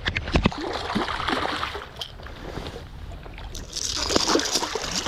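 Water splashing and sloshing as a hooked striped bass thrashes at the surface while it is landed; the splashing gets louder about four seconds in.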